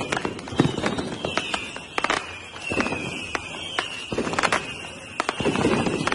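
Fireworks going off: sharp bangs and crackling, over a high whistle that slides down in pitch again and again.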